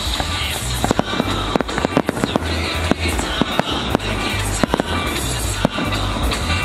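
Aerial fireworks shells bursting overhead in a rapid run of sharp bangs, a dozen or more within a few seconds, over loud music with a heavy, thumping bass beat.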